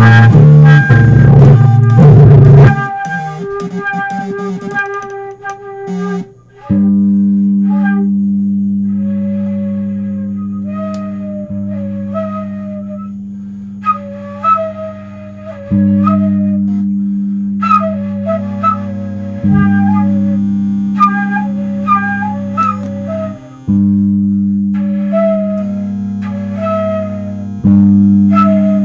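Instrumental music: a loud, dense full-band passage stops about three seconds in. After a short lull, low guitar and bass notes are struck and left to ring and fade, restruck every few seconds, under a flute melody in short phrases.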